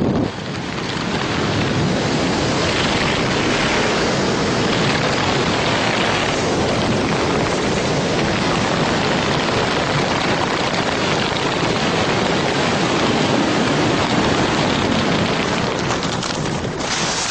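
Loud, steady rush of wind over a skydiver's helmet-camera microphone in freefall.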